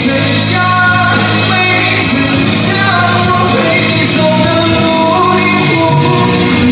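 Pop song with a singing voice over a band accompaniment, at a steady loud level.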